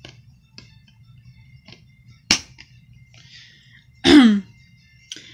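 Light plastic clicks from a DVD keep case as a disc is pressed onto its centre hub, with one sharp snap about two seconds in as the disc seats. About four seconds in comes a short vocal sound that slides down in pitch.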